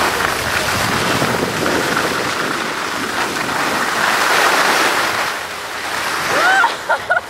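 Skis sliding and scraping over packed snow during a downhill run, a steady rushing hiss mixed with wind on the microphone. Near the end a few short, high voice sounds break in.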